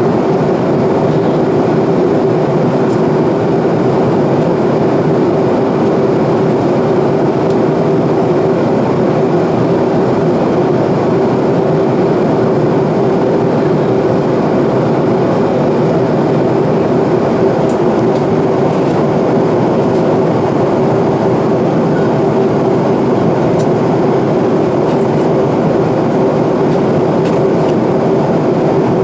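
Steady cabin noise of an Airbus A330-200 at cruise, heard inside the cabin: the unbroken rush of airflow and drone of its Rolls-Royce Trent 700 engines, with a steady hum.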